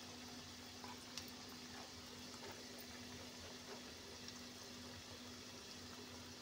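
Onion pakoras deep-frying in hot oil: a steady soft sizzle with scattered small crackles, over a steady low hum.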